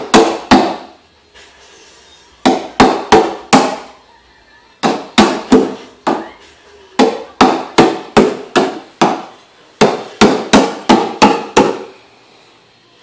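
Hard hollow plastic knocks: a toy gas-pump nozzle banged against the plastic body of a Little Tikes Cozy Truck. The knocks come in runs of three to seven strikes, about three or four a second, with short pauses between runs.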